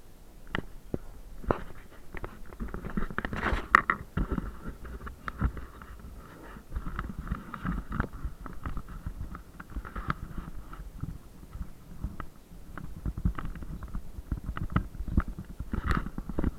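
Irregular knocks, thuds and clattering of demolition work breaking up interior partition walls, with a heavier run of blows about four seconds in.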